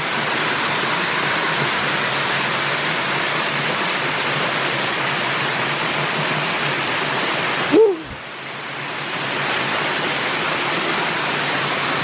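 Small waterfall cascading over granite boulders into a pool: a steady rush of falling water. About eight seconds in there is a brief pitched blip, then the rush drops out for a moment and fades back in.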